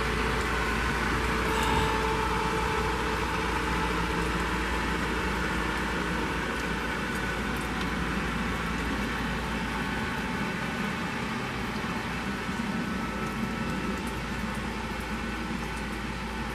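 A steady motor-like drone with a faint hum, unbroken and without distinct events.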